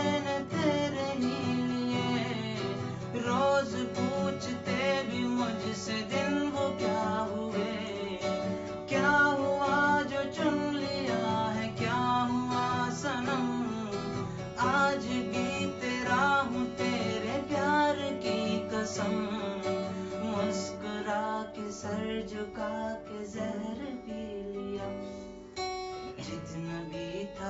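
Acoustic guitar being played, with a voice singing a melody over it.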